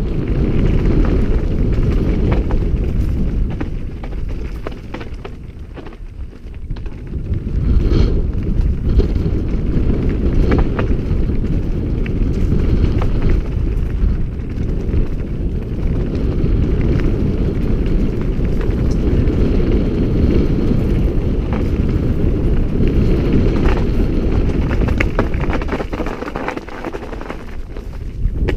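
Wind buffeting an action camera's microphone during a fast descent on a Giant Trance full-suspension mountain bike, with the tyres rumbling over loose stones and frequent clacks and rattles from the bike on the rough trail. The noise eases for a few seconds early on, then picks up again.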